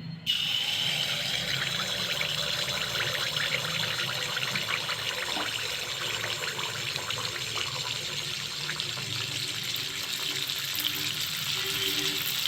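Rice-and-jaggery appam batter hitting hot oil in a kadai and frying: a sizzle that starts suddenly about a third of a second in, then keeps crackling and hissing steadily.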